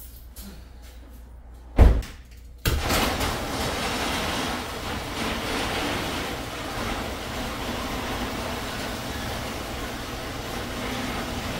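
A car door shuts with one thud about two seconds in. Then an electric garage door opener starts, and the sectional roll-up garage door rumbles steadily down its tracks.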